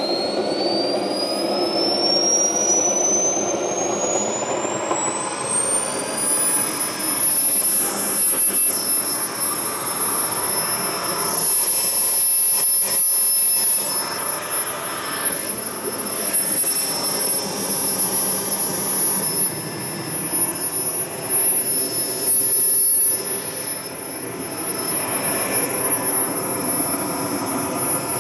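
Swiwin 80 model jet turbine running on a bench test in a Hangar 9 MB339 RC jet. Its high whine climbs steeply over the first six or seven seconds as it spools up, then holds steady over a rushing exhaust that rises and falls in loudness.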